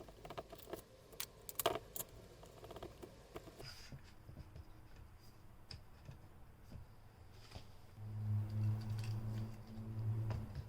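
Clicks, knocks and light rattling of a portable aluminium travel tripod being handled as its centre column is reversed, thickest in the first two seconds, with sparse faint ticks after. A low steady hum comes in about eight seconds in.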